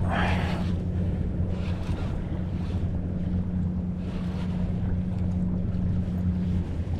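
Wind blowing across the microphone on open water, over a steady low droning hum. There is a short rush of noise right at the start.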